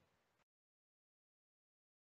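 Near silence: the sound track drops to dead silence.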